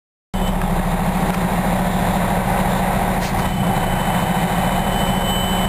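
Pierce Arrow XT fire engine's diesel engine idling steadily, heard from inside the cab; it comes in abruptly a moment in.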